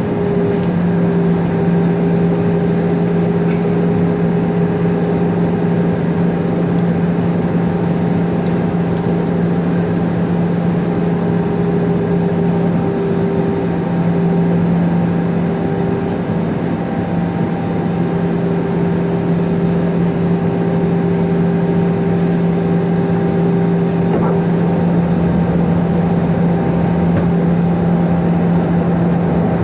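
Airbus A320 cabin noise in flight: the steady rush of airflow over the fuselage with the even hum of its CFM56 engines, two low drones holding a constant pitch throughout.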